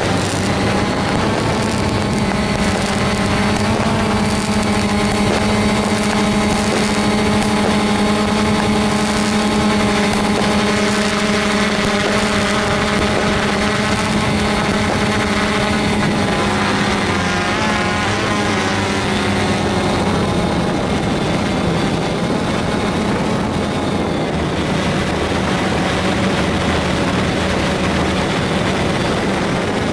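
Drone's motors and propellers whining steadily, heard from the drone's own onboard camera. The pitch wavers and shifts about two-thirds of the way through.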